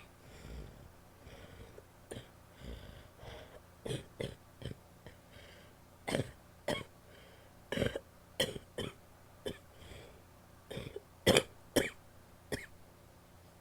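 A woman's wet coughs: about a dozen short coughs in clusters of two or three, the loudest near the end, after a few seconds of quieter sounds.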